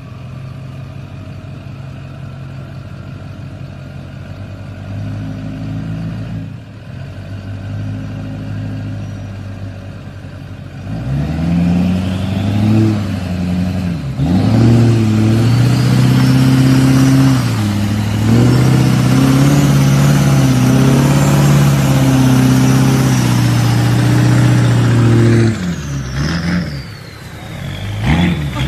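Duramax turbo-diesel V8 pickup engine idling low, then revving hard about eleven seconds in and held at high revs with several brief dips. Near the end the revs drop and a high whine falls in pitch.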